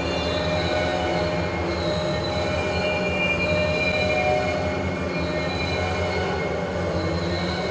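Railroad cars rolling along the track with wheels squealing: several high, shifting squeal tones that fade in and out over a steady low rumble.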